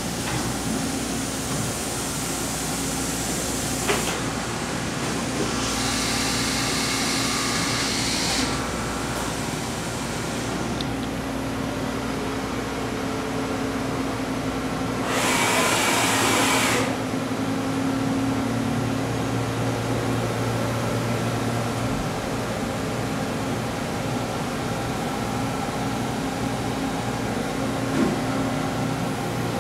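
Steady hum of running machine-shop equipment with a steady low tone. A hissing burst comes about six seconds in and a louder one about halfway through, with a light knock about four seconds in and another near the end.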